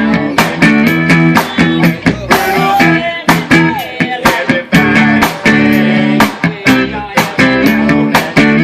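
Live band music: guitar over a steady drum beat.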